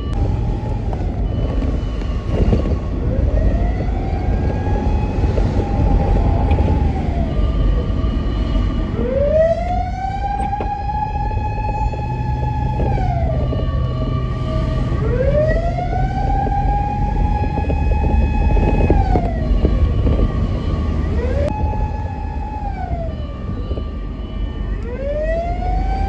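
Japanese fire vehicle's siren wailing in long cycles: the tone rises slowly, holds high for a few seconds, then falls, repeating about every six seconds. Steady engine and road noise from the following car runs underneath.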